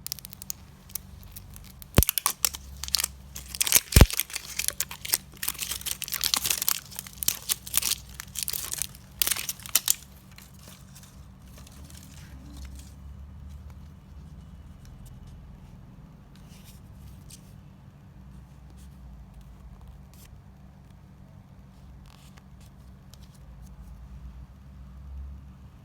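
Plastic wrapping of an L.O.L. Surprise! Lil Sisters toy ball crinkling and tearing as it is unwrapped by hand, with two sharp clicks near the start, for about eight seconds. After that it goes quiet apart from a faint low hum and a few light ticks.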